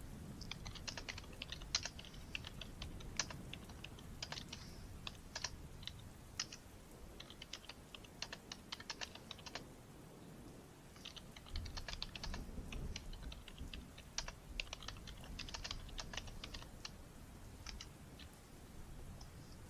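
Typing on a computer keyboard: runs of quick key clicks, a short break near the middle, then only a few scattered keystrokes near the end.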